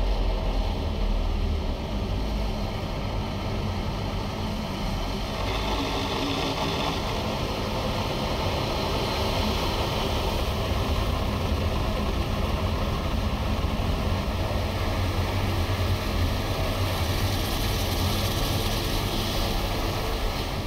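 Car wash equipment running: a steady rushing noise over a low rumble, with a hiss that grows a little stronger about five seconds in.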